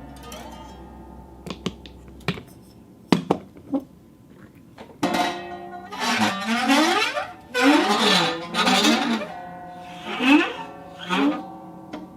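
A ball clinking a few times against a glass half-sphere cup, then rolling around inside it in several runs from about five seconds in: a rolling sound that swings up and down in pitch over the glass's ringing tones.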